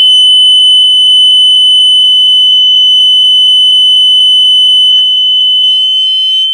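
Vintage BRK 1200 smoke alarm sounding on test: one loud, continuous high-pitched tone with a faint fast flutter, which weakens somewhat about five seconds in.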